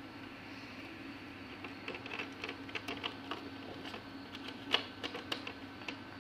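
Scattered light clicks and taps of hands handling wiring and plastic parts inside an opened projector casing, starting about two seconds in, with the sharpest click near the middle, over a steady low hum.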